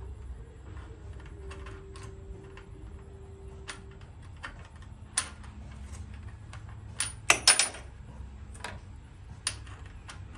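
Small metal parts clicking and clinking as a flange washer and arbor bolt are fitted by hand onto a miter saw's spindle. The sharpest cluster of clicks comes about seven seconds in.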